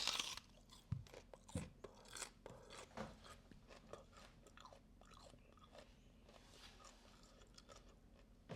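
A person bites into a raw onion with a sharp crunch, then chews it in short crunchy bites that thin out after a few seconds.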